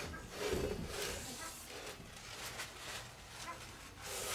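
Shop rag rubbing and wiping over a new differential carrier's flange, a series of short scrubbing swishes.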